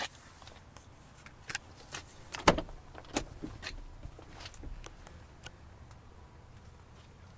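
Clicks and knocks from handling a pickup truck's cab door: a string of sharp taps in the first few seconds, the loudest a single thud about two and a half seconds in, then it goes quiet.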